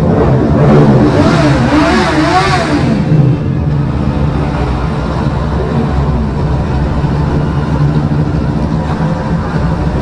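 Many motorcycles riding together in a group: a steady engine rumble, with nearby bikes revving up and down and a swell of rushing noise over the first three seconds.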